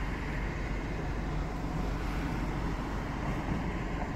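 Steady low rumble of a van idling, heard from inside its cab.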